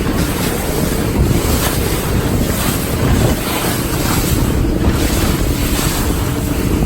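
Boat under way at speed across open water, with heavy wind on the microphone and the rush and slap of water along the hull.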